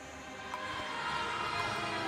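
Film score music swelling in: layered sustained tones that grow steadily louder, with a low held note entering near the end.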